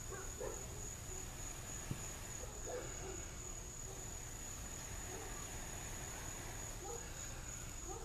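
Insect trilling steadily at a high pitch, over a low rumble, with a few faint short sounds in the middle pitches.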